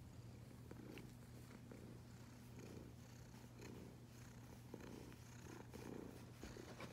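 Domestic cat purring softly and steadily while being stroked on the head, the purr swelling and easing with each breath about once a second.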